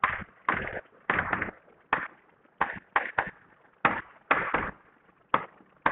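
Chalk writing on a chalkboard: about a dozen short, irregularly spaced strokes as letters are written.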